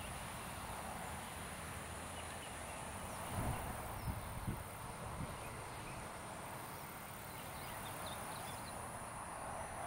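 Grassy field ambience: a steady high-pitched insect drone over a soft outdoor hiss, with faint chirps near the end. A few soft low thumps come between about three and five seconds in.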